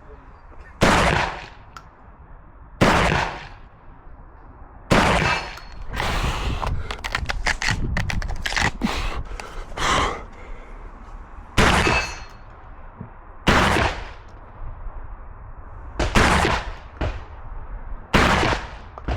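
Shotgun fired in an IPSC practical shooting stage: about ten loud shots spaced a second or two apart, with quick fainter clicks and rattles between some of them.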